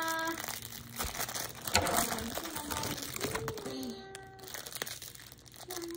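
Thin plastic wrapper crinkling as it is handled and cut open with scissors, with a sharp click about two seconds in.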